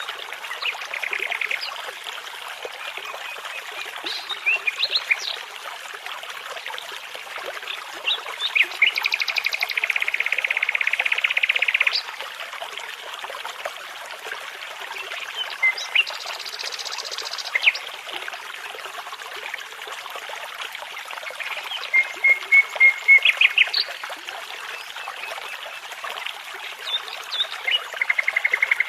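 Songbirds singing over the steady rush of a babbling brook: scattered chirps and whistles and several fast trills, the longest lasting about three seconds, near the middle.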